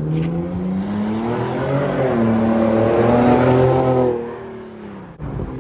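Car engine accelerating hard through a loud exhaust, which has just had new pipes fitted to make it louder. The revs climb, dip once at a gear change about two seconds in, climb again, then fall away quickly after about four seconds.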